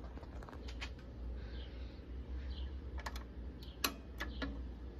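Clicks of the front-panel control buttons on a Pioneer PL-560 full-automatic turntable being pressed: a few light clicks, then a cluster of sharper ones from about three seconds in, the loudest near four seconds.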